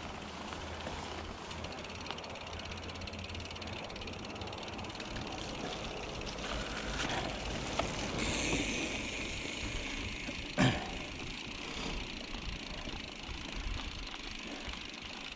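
Mountain bike riding down a dirt trail: steady tyre and rolling noise with the bike rattling, and wind on the microphone. A single sharp knock about two-thirds of the way through stands out as the loudest sound.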